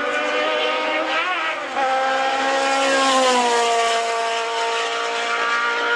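Simca Rallye II race car engine running hard under acceleration. Its pitch rises about two seconds in and then falls about a second and a half later.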